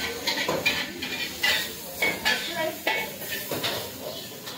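Dishes and cutlery clinking and clattering in a row of sharp, irregular knocks, with voices in the background.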